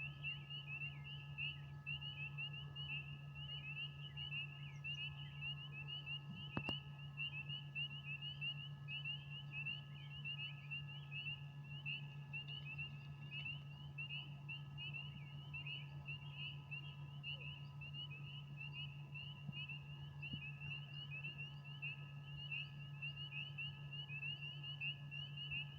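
A dense chorus of frogs chirping: many short, high calls overlapping in a continuous rapid trill, over a steady low hum. A single sharp click sounds about six and a half seconds in.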